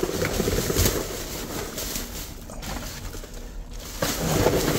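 Black plastic trash bags rustling and crinkling in uneven bursts as gloved hands dig through them and shift boxes inside a dumpster.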